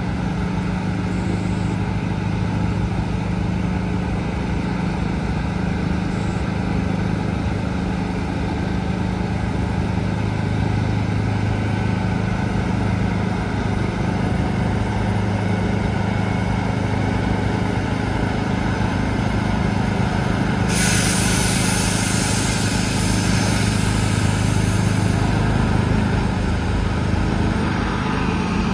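Heavy tractor-trailer's diesel engine running steadily as the truck creeps forward at low speed. About two-thirds of the way through, a sudden loud hiss of air from the truck's air brakes lasts about four seconds, then fades.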